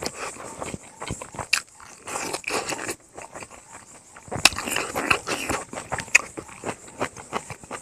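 Close-miked eating sounds: a man chewing a handful of rice and pork, with wet lip smacks and irregular mouth clicks.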